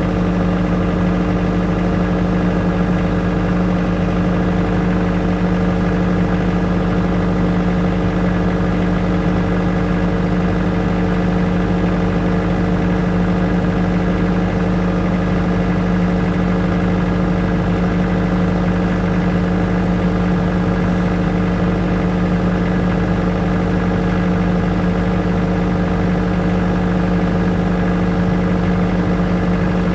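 Engine-driven generator running steadily at constant speed: an even drone with a strong low hum and no change in pitch or level.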